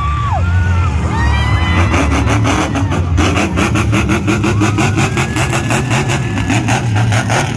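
Monster truck engine running loud as the truck drives past, over music played through the arena speakers.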